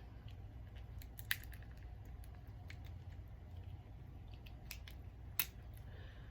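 Quiet eating sounds from a seafood boil: soft chewing and squishing with a few sharp clicks of shells and food being handled, the sharpest about a second in and again near the end, over a steady low hum.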